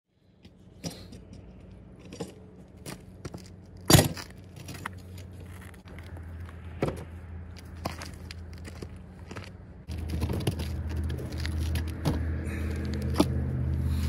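WEN 3800-watt portable generator running with a steady engine hum that becomes louder about ten seconds in. Scattered knocks and clinks sound over it, the loudest a sharp knock about four seconds in.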